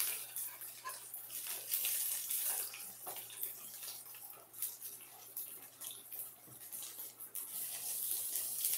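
Rice patties sizzling in oil in a stainless steel frying pan: a steady high hiss with scattered small crackles, over a faint low hum.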